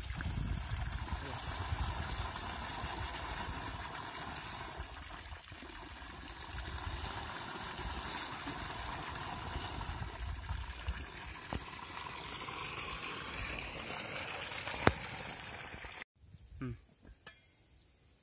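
Water pouring out of a black irrigation pipe into a plastic bottle being filled, a steady rush with one sharp click shortly before it cuts off suddenly about sixteen seconds in; after that only a few faint knocks.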